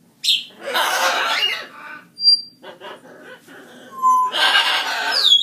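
An animal giving two harsh cries, each lasting about a second or more, with short high whistled notes between them.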